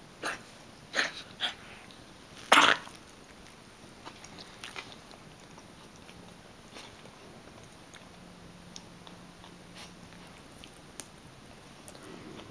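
A pet coughing: four short coughs in the first three seconds, the last one the loudest, followed by faint scattered clicks.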